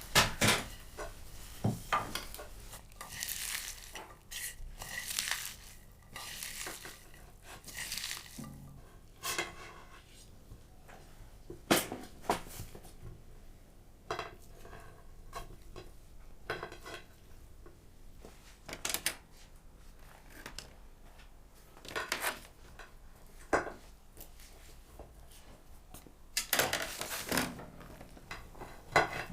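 Dishes and kitchen utensils clinking and knocking now and then, with a few longer scrapes between the knocks.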